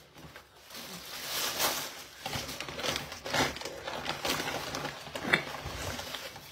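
Plastic packaging crinkling and rustling, with scattered light clicks and knocks of dishes and utensils being handled at a table.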